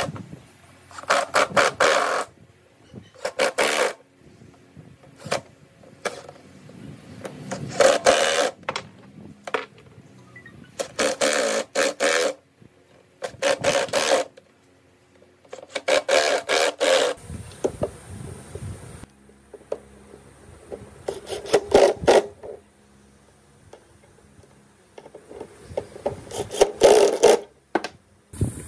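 Scraping or rubbing with a hand tool on a workpiece, in repeated bursts of one to two seconds with short pauses between.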